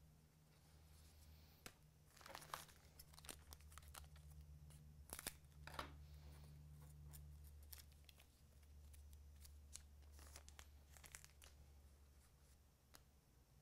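Faint crinkling and rustling of a hockey card pack wrapper and cards being handled, in several short clusters, over a low steady hum.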